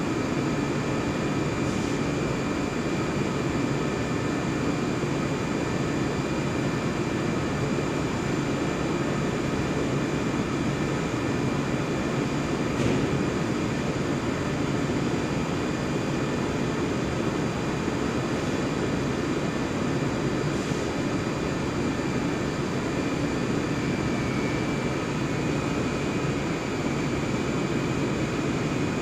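HDPE blown-film extrusion line running: a steady machine drone with a constant high-pitched whine over it.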